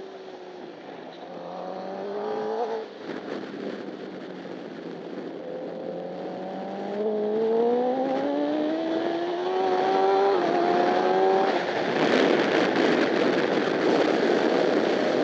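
Honda CBR1000RR superbike's inline-four engine heard onboard, accelerating hard with rising pitch, and upshifting: the pitch drops once about three seconds in, then twice in quick succession later on. Over the last few seconds a loud rush of wind noise at speed joins the engine.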